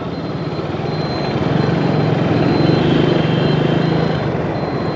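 Engine and road noise of a moving vehicle in city traffic, a steady drone that grows a little louder about a second and a half in and eases near the end.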